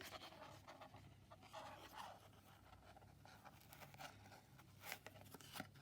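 Faint scraping and rustling of cardboard being handled as elastic ends are pushed through holes in it, with a few small taps near the end.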